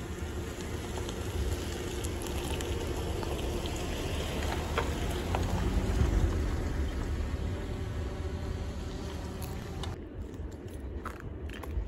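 Outdoor background noise: a steady low rumble and hiss with a few faint clicks, thinning out about ten seconds in.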